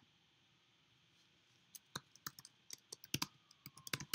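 Typing on a computer keyboard: a single key click, then after about a second and a half a quick, irregular run of key clicks.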